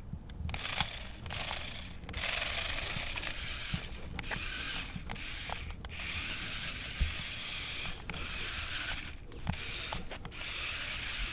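DEERC DE81 omni-wheel RC car's small electric drive motors and plastic gearboxes whirring as it drives through grass, cutting out briefly several times as the throttle is let off.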